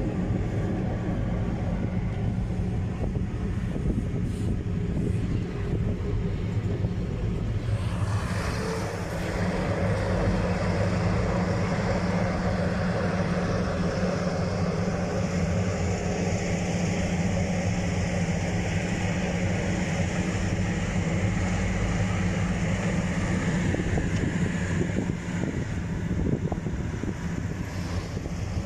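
Vehicle engine running with a steady low drone, heard from inside a moving vehicle's cab, with road and wind noise building up about eight seconds in.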